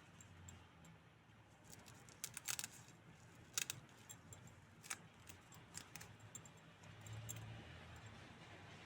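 Faint handling noises from a small plastic doll and its packaging: a scattered run of small clicks and light taps, loudest about two and a half and three and a half seconds in.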